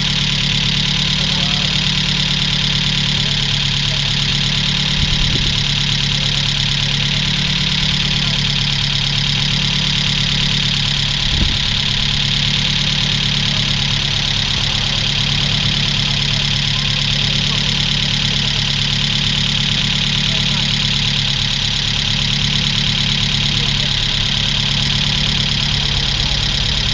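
Opel Astra GSi's freshly rebuilt C20XE 2.0-litre 16-valve four-cylinder idling steadily in its first minutes of running after the rebuild.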